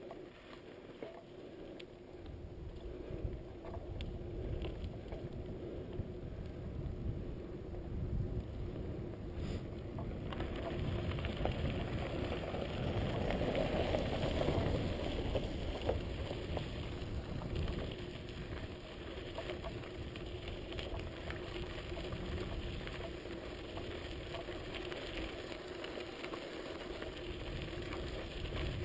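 Bicycle tyres rolling on a road, heard through a bike-mounted camera as a steady rumble. About ten seconds in, as the bike moves onto gravel, the rolling noise grows louder and rougher.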